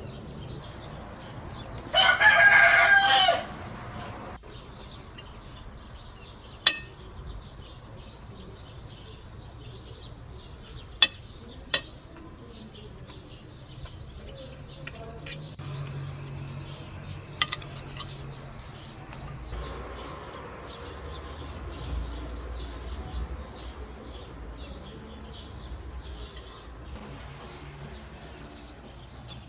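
A rooster crows once, loud and drawn out, about two seconds in. A few sharp clicks or knocks follow later, over a steady quiet outdoor background.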